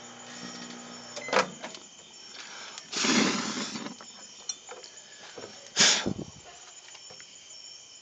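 Microwave oven humming while it runs, then cutting off about a second in, with a sharp clack as the door is popped open. Two short, loud noisy bursts follow, one about three seconds in and one near six seconds, along with a few light knocks.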